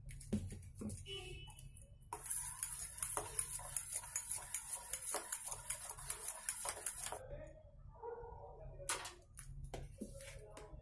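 Steel spoon whisking a batter of flour and thickened milk in a stainless steel bowl, clinking against the bowl in a quick, steady rhythm for about five seconds. A few separate clinks come before and after.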